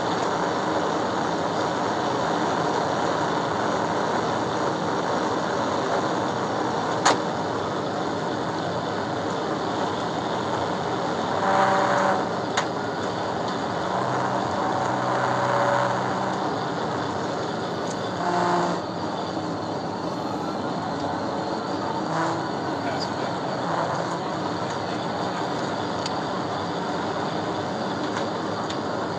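Steady loud road, wind and engine noise inside a police cruiser running at about 120–130 mph in pursuit. There is a sharp click about seven seconds in, and a few short louder tones near the middle.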